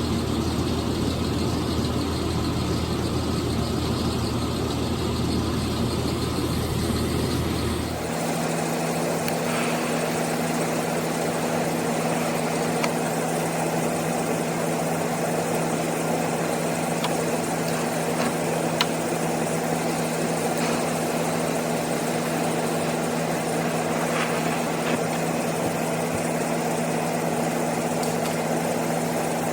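Steady hum of running shop equipment that changes abruptly about eight seconds in to a higher, steady two-note hum, with a few faint ticks.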